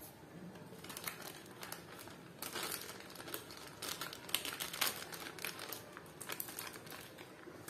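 Plastic piping bag full of whipped cream crinkling as it is squeezed and worked by hand: a quiet, irregular run of small crackles.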